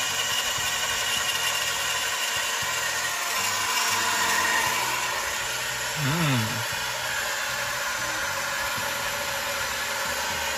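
Portable rechargeable bottle blender running steadily, its small motor whining as it mixes protein powder and water.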